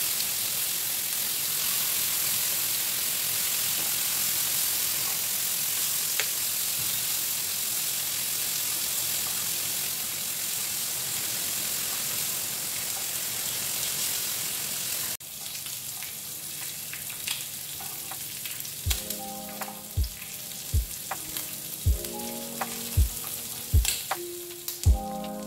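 Pork belly slices and garlic sizzling in a hot ridged grill pan, a steady frying hiss. About 15 seconds in the sizzle drops abruptly to a quieter level and background music with a beat about once a second comes in over it.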